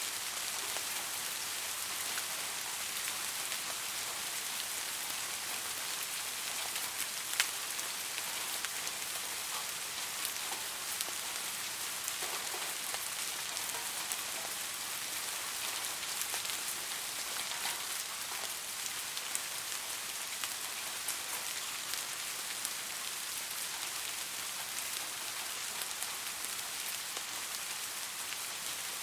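Soft rain falling steadily, a fine even patter with scattered individual drops ticking out, one louder drop hit about seven seconds in.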